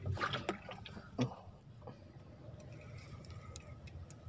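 Faint handling noises in a small wooden boat: a few light clicks at the start, one sharper knock about a second in, then a few scattered ticks over a low background.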